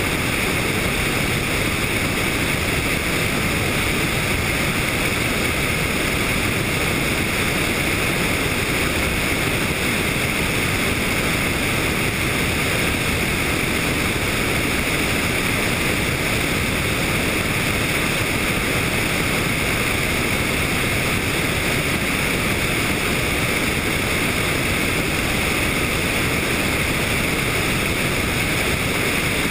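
Steady rushing noise of a helicopter in flight, engine and rotor mixed with wind over the microphone, unchanging throughout.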